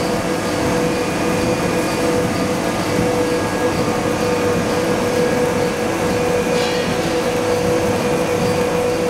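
Ring rolling mill running: steady, even machine noise with a constant hum.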